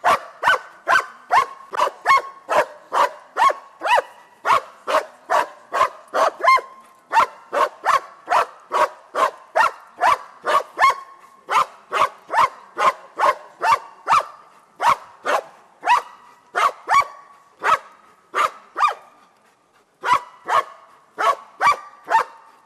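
German shepherd barking at a helper in the hide, the bark-and-hold of protection sport: short, loud barks about two a second in a steady rhythm, with one brief break late on.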